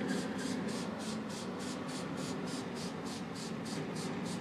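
A rhythmic hissing, about three pulses a second, over a steady low mechanical hum.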